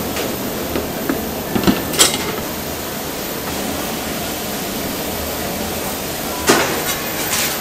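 Steady kitchen background noise with a few short clinks and knocks of utensils against stainless-steel bowls, the sharpest about two seconds in and again near the end.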